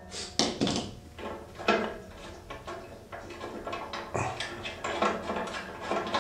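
Metal clinks and knocks, several at irregular intervals, as the welder's metal heating dies are handled and knocked against the painted metal carrying case.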